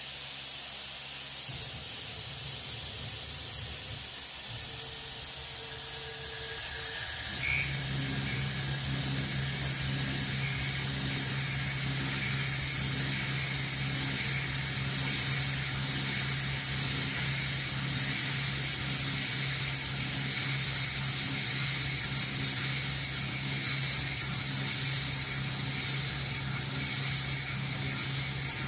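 Grizzly G0704 CNC mill cutting an aluminium block, with a steady hiss from the coolant nozzles blowing at the cutter. About a quarter of the way in, a steady low hum joins and the sound grows a little louder.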